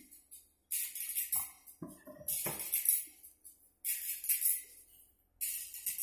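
Background music: a slow song with a tambourine shaken about every one and a half seconds.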